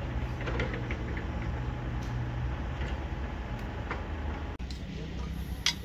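Scattered light clicks and taps of steel reinforcing bars being handled, one sharper click near the end, over a steady low machinery hum.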